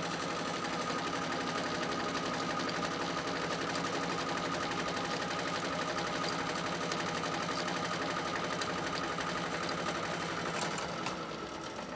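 Milling machine running, its end mill cutting a flat into a knurled screwdriver handle: a steady whine with fast, fine chatter. The sound drops away near the end.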